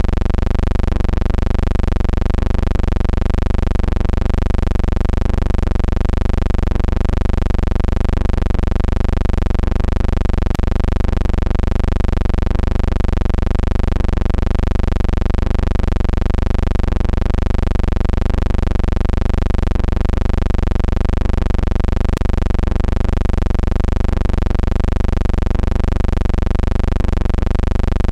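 Steady, loud, machine-like hum with many overtones that waver slightly in pitch and pulse about once a second, with a faint click twice. It is soundtrack noise on old game film, with no commentary or crowd.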